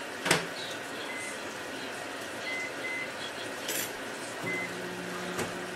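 Microwave oven being started: a door clicks shut, a few keypad beeps sound, and then the oven's steady hum starts near the end as it begins to run.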